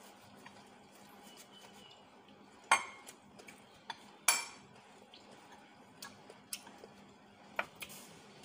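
Cutlery clinking against ceramic plates and bowls: about eight scattered sharp clinks, the two loudest about two and a half and four seconds in.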